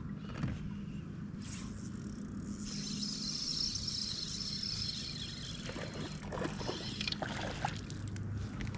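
A boat's motor running steadily, with a higher whirr for several seconds and a few light clicks in the second half.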